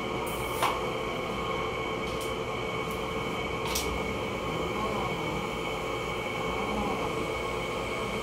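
Steady electric motor hum at an even pitch, with a few light clicks in the first few seconds.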